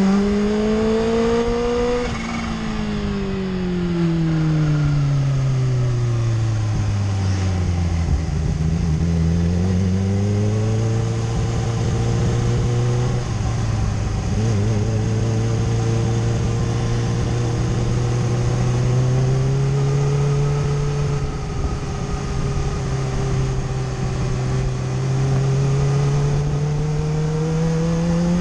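Kawasaki inline-four superbike engine heard from the rider's seat over rushing wind. The revs climb in the first two seconds, fall away steadily over the next several seconds, pick up again about ten seconds in, then hold a fairly steady cruise with small rises and dips, climbing again at the end.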